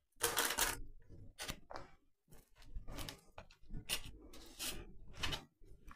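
Hands cutting out scone dough with a round cutter and setting the raw scones into a paper-lined air fryer basket: a series of short rustling and scraping sounds with brief pauses between, the loudest about half a second in.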